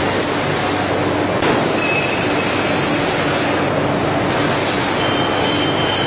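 Veneer splicer machine running: a steady, loud mechanical noise with a low hum under it, and two brief faint high whines, one about two seconds in and one near the end.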